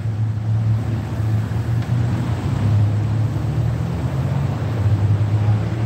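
Steady low rumble with an even hiss: outdoor background noise, unchanged throughout.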